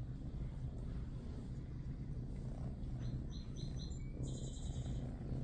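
A kitten purring steadily, a low continuous rumble close up.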